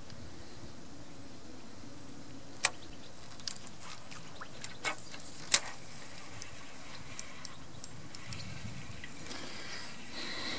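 Irregular light clicks and taps from handling a fishing rod and spinning reel while playing a fish, about ten in all with the loudest just past the middle, over steady background noise.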